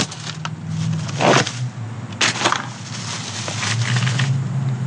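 Plastic shopping bag and shrink-wrap packaging crinkling in several short bursts as a brake-line coil and a flaring tool kit are handled, over a steady low hum.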